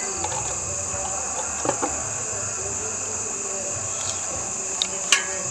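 Crickets chirring in a steady high-pitched drone, with a few short clicks, two of them near the end.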